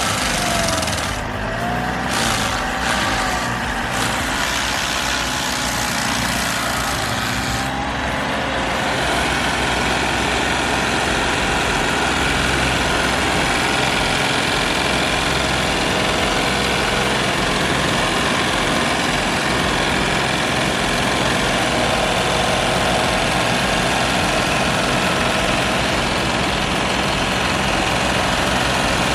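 Large wood chipper's engine running under load as it chews through wood, with the engine note rising and falling in the first few seconds. About eight seconds in, the noise becomes denser and then stays steady.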